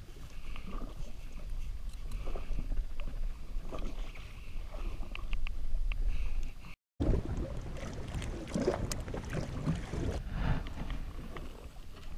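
Wind buffeting the microphone over water lapping against a jet ski hull, with light clicks and rustles of hands working a soft-plastic lure out of a snapper's mouth. The sound drops out completely for a moment about seven seconds in.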